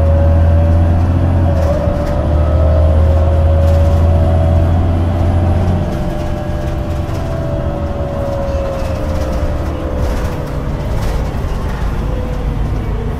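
Irisbus Citelis city bus running on its Iveco Cursor 8 diesel and ZF Ecomat automatic gearbox. A deep engine drone weakens about six seconds in, and a whine slowly rises and then falls in pitch.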